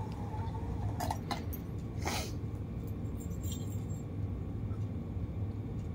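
A few brief rustles about one and two seconds in as a cat pushes its head into a thin plastic toy, over a steady low hum.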